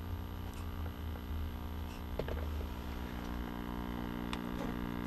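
Power-supply hum from the loudspeaker of a vintage tube TRF AM radio with the volume wide open, on reduced line voltage: a steady low hum with evenly spaced overtones, rising a little in level, with a few light clicks. The owner puts the hum down to the power supply lacking filter capacitance.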